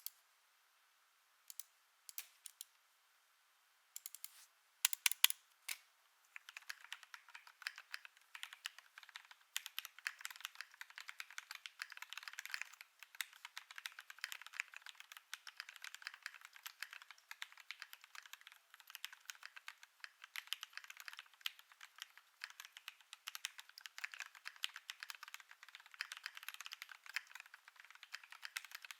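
KBD8X custom mechanical keyboard with lubed Gateron Milky Black linear switches, an FR4 plate and MT3 keycaps being typed on: a few separate keystrokes over the first six seconds, then steady fast typing.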